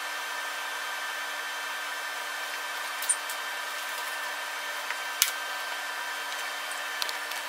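Steady machine hum with a faint high whine, broken by a few light clicks and taps.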